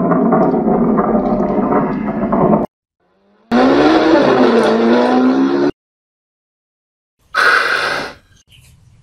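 Three abruptly cut bursts of loud, engine-like sound effect. The second, about three and a half seconds in, rises and falls in pitch like an engine revving, and the third, near the end, is short and fades out.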